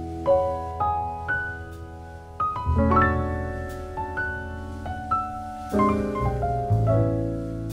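Background piano music: notes and chords struck one after another, ringing on over low bass notes.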